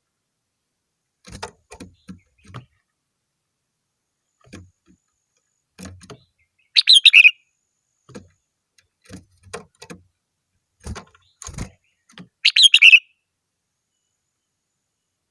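Red-whiskered bulbul singing: two short, loud, bubbly song phrases about six seconds apart, with faint scattered knocks and taps in between.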